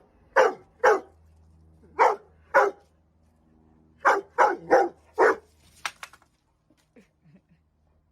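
A dog barking: two pairs of barks, then a quicker run of four, falling quiet about six seconds in.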